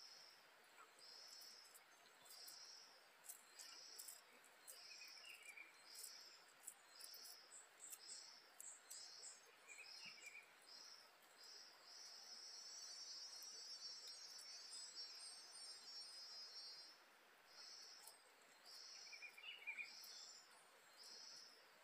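Faint insects chirping in a regular pulse about once a second. The pulse gives way to a continuous high trill for a few seconds in the middle, then resumes. A bird calls faintly three times, and a few tiny clicks are scattered through the first half.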